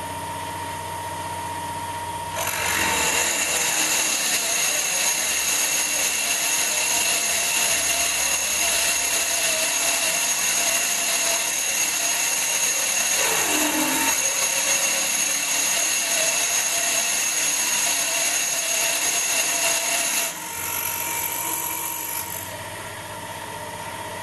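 A small belt-driven 775 DC motor spindle running a twist drill, drilling dry into cast iron. It hums steadily, then about two and a half seconds in gets much louder with a harsh cutting noise under load, which drops back to a lighter hum near the end as the drill eases off.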